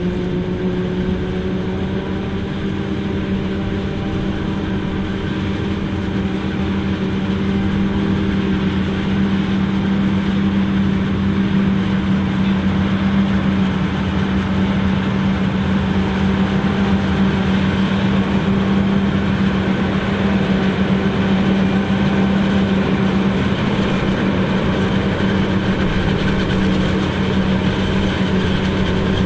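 John Deere 9500i self-propelled forage harvester chopping corn for silage, running together with a John Deere tractor pulling the forage wagon alongside: a loud, steady machine drone with a constant low hum, swelling slightly after the first several seconds.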